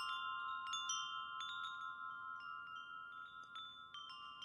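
Wind chime tinkling: light, irregular strikes ring out over a few held tones, slowly fading.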